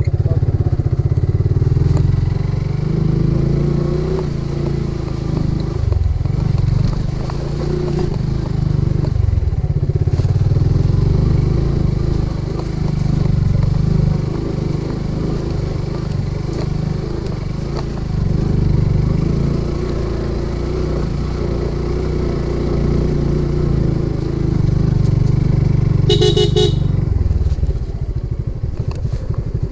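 Suzuki Gixxer motorcycle engine running at low speed on a rough dirt track, its sound swelling and dipping with the throttle. Near the end the bike's horn sounds once for about a second, the signal that a way through has been found.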